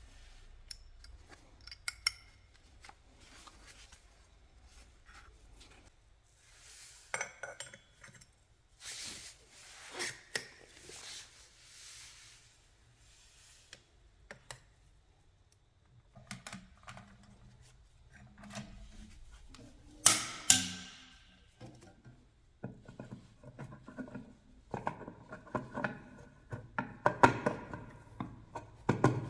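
Metal hand tools and drive-train parts clinking and knocking against each other in irregular bursts, busier and louder in the last third.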